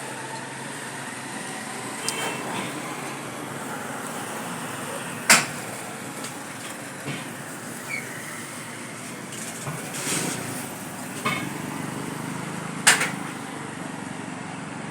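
Street traffic noise in a town centre: a steady hum of vehicles with small passing sounds. Two sharp knocks, about five seconds in and near the end, are the loudest sounds.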